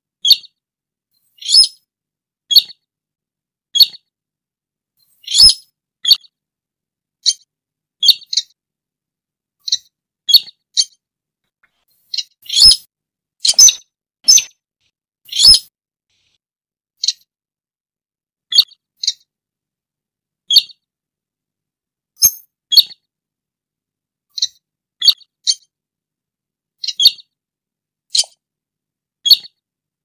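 Slaty-breasted rail (sintar) calls played as a bird-lure track: short, sharp, high notes repeated about once a second, some in quick pairs, with silence between them.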